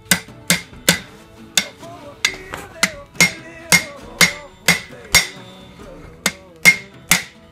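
Hand hammer striking hot round steel bar on the anvil horn, bending it into an eye: about two blows a second, each a sharp clang with a short ring, with a brief pause about five and a half seconds in. Guitar music plays underneath.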